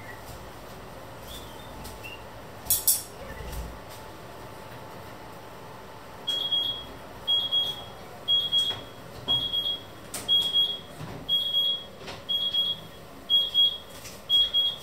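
An electronic kitchen timer beeping: a high, even beep about once a second, starting about six seconds in. A sharp clack comes about three seconds in.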